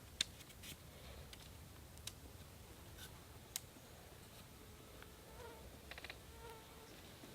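Faint buzzing of a flying insect, with a few sharp light clicks and a quick run of ticks about six seconds in from a collapsible fishing rod and reel being rigged.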